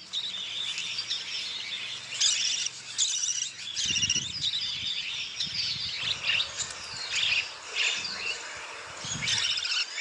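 Budgerigars chirping and chattering in quick, high, warbling calls.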